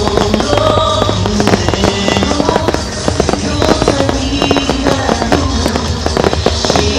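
Fireworks bursting in rapid, continuous succession, a dense run of pops and crackles, over music played for the show.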